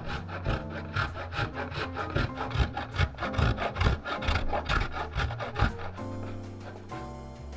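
A block of hard Parmesan rasped down a stainless steel box grater in quick repeated strokes, about two to three a second, stopping about six seconds in. Soft background music plays underneath.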